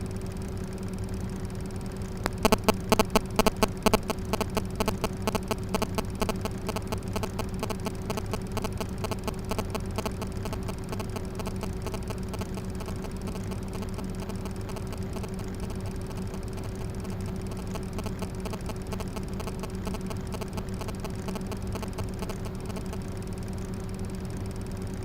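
Small USB fan running with a steady hum. About two seconds in, a rapid ticking starts, loudest at first and fading over the next several seconds.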